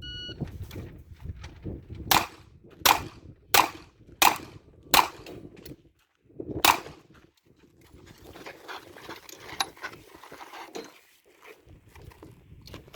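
A shot timer's short start beep, then six pistol shots: five in a quick even string about 0.7 s apart, and a sixth after a pause of well over a second.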